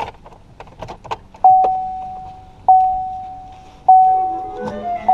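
Car's interior warning chime dinging three times, about once every 1.2 seconds, each a single clear tone that fades away. A few light clicks and knocks come before it, and background music begins near the end.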